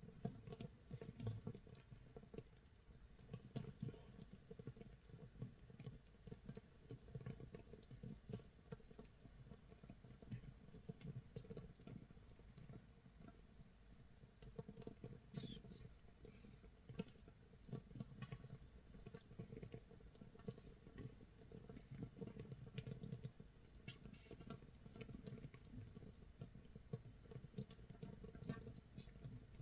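Makgeolli starter mash fermenting in an earthenware crock: a constant soft crackle of tiny bubbles popping at the surface, like light rain or crackling rice crust, with scattered sharper ticks. It is the sign of vigorous yeast fermentation, carbon dioxide rising through the mash about a day after mixing.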